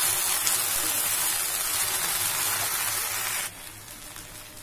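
Cut okra and onions sizzling as they fry in mustard oil in a kadai, stirred with a spatula. The sizzle drops suddenly to a much quieter level about three and a half seconds in.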